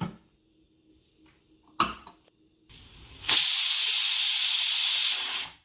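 A stovetop pressure cooker venting steam at its whistle, a loud steady hiss lasting about two seconds, the sign that the dal inside has come up to pressure and is cooked. A single click sounds about two seconds earlier.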